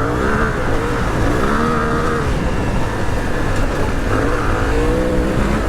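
Suzuki V-Strom 800DE's parallel-twin engine under way on a dirt trail, its pitch rising and falling several times as the throttle is opened and closed, over a steady rush of wind and road noise.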